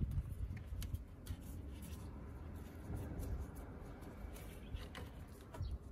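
Faint rubbing and small clicks of gloved fingers working a new rubber O-ring onto the A/C pressure-sensor fitting, over a low steady rumble.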